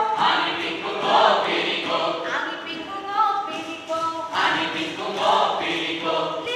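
A group of voices chanting a folk song in unison, unaccompanied, with two louder, rougher stretches of group shouting.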